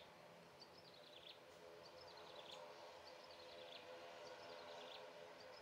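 Faint, distant, steady hum of an ATR 72-500's two turboprop engines turning at low power, with a small bird's short chirps repeating about once a second above it.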